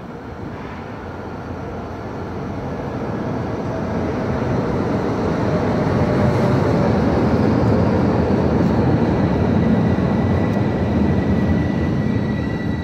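Stadtbahn light-rail train pulling into an underground station: the rumble of its wheels on the rails swells as it approaches and passes, echoing off the station walls, then eases near the end as it slows. A thin, steady high squeal joins about eight seconds in.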